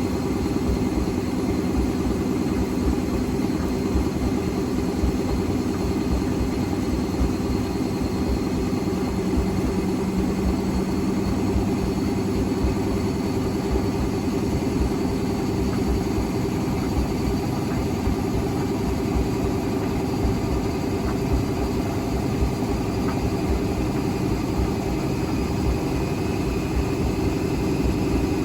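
Hotpoint Extra WMXTF942 washing machine spinning on its rinse cycle with an unbalanced load: a steady low rumble from the drum and cabinet, with a faint motor whine that climbs slightly in pitch near the end.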